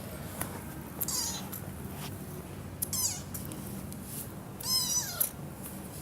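Domestic cat meowing three times, each call high and falling in pitch; the last call, about five seconds in, is the longest and loudest.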